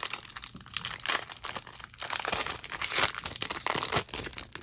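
A trading-card booster pack's wrapper crinkling and tearing as it is ripped open by hand, in a rapid run of crackles that comes in waves, busiest in the second half.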